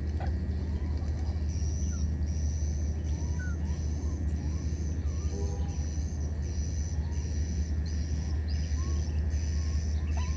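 Outdoor ambience: a high, even chirp repeating about one and a half times a second over a steady low hum, with a few faint short squeaks.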